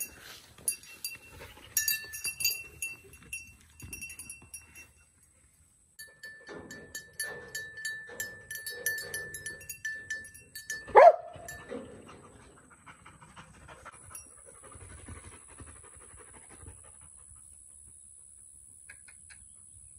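Small bells on young goats' collars jingling as the goats trot and hop, two bells of different pitch ringing in turn. About eleven seconds in comes one short, loud rising cry from an animal.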